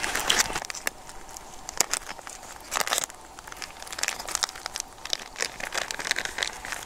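Clear plastic food packaging crinkling with irregular crackles as it is cut open with a knife and pulled apart.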